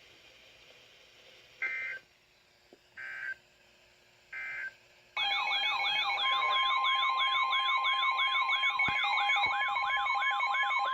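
Three short bursts of EAS/SAME digital data tones, the end-of-message signal closing a weather radio alert. About 5 seconds in, the next alert begins: an alarm siren warbling up and down about twice a second, joined about a second later by the steady NOAA Weather Radio warning alarm tone.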